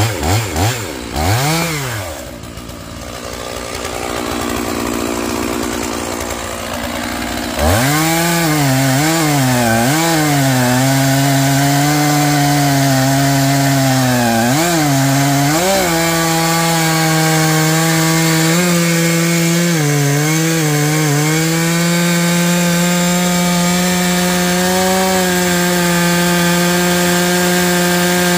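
Stihl MS461 two-stroke chainsaw cutting logs. A few quick throttle blips are followed by several seconds at a low, quieter speed. About eight seconds in it is opened up to full throttle, its pitch dipping again and again as the chain bogs in the wood, and then it holds a high, nearly steady pitch through the cut.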